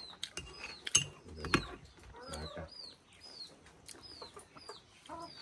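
A metal spoon clinks sharply against a ceramic mug twice, about a second and a second and a half in. Behind it a bird gives repeated short falling chirps, about two a second, and chickens cluck softly.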